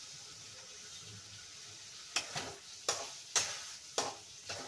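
Taro (kachu) and prawns frying in masala in a metal karahi, with a steady sizzle. About two seconds in, a ladle starts stirring, scraping and knocking against the pan five times, roughly half a second apart.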